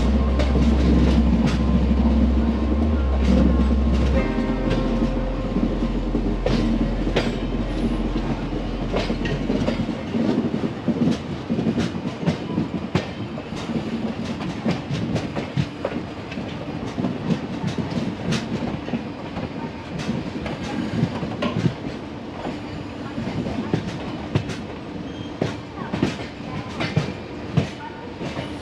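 Passenger coach wheels clicking and clattering over rail joints and points as the train rolls into a station, heard from the coach doorway. A deep low rumble under the clatter drops away in two steps, about four and about ten seconds in.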